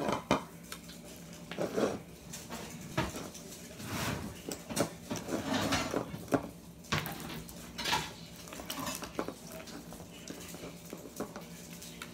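Clear glitter slime full of plastic beads being squeezed and kneaded by hand in a plastic bowl: irregular wet squishes and sharp clicking pops, with a light clatter against the bowl.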